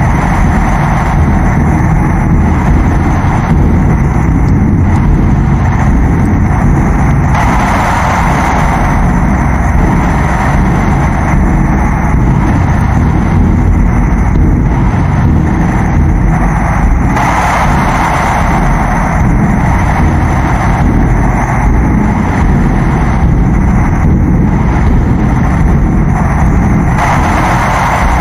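Loud, heavily distorted noise sound effect: a continuous low rumble under a harsh hiss that swells now and then.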